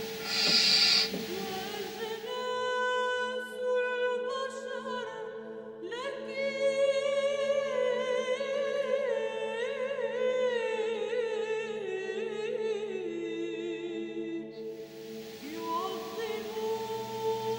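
Background music with a singing voice holding long, wavering notes. About a second in, and again near the end, barn owl owlets give hissing snore calls over the music.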